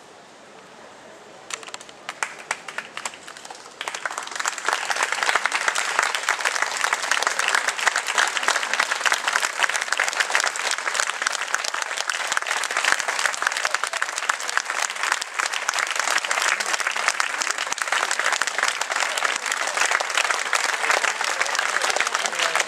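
Audience applauding: a few scattered claps at first, swelling into full, sustained applause about four seconds in.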